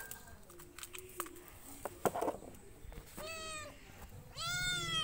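A cat meowing twice: a short call about three seconds in, then a longer, louder one near the end. A few light knocks of plastic toys being handled come before.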